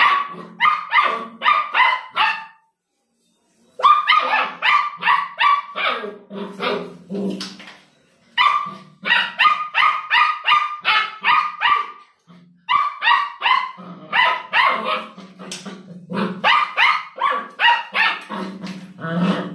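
Belgian Malinois puppy barking rapidly and aggressively, short high-pitched barks about three to four a second in long runs, broken twice by pauses of about a second.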